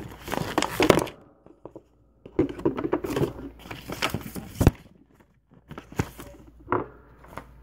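Rustling, brushing and a few light knocks from a hand and arm handling things on a tabletop close to the microphone, in three uneven bursts.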